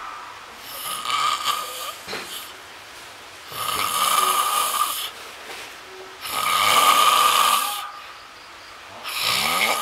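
A sleeping person snoring loudly: four long rasping snores at an even pace, one about every two and a half to three seconds.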